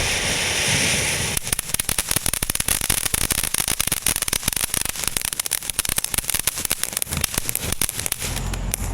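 A consumer ground firework going off: a steady hiss, then about a second and a half in it breaks into dense, rapid crackling that stops near the end.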